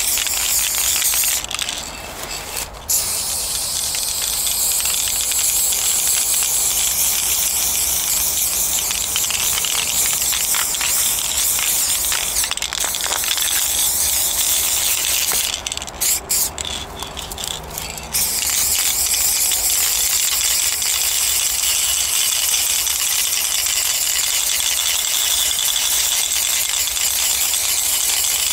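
Aerosol spray paint can fitted with a wide fat cap, hissing in long continuous sprays. The hiss stops briefly about two seconds in and again for a couple of seconds about sixteen seconds in, with a few clicks in the second pause.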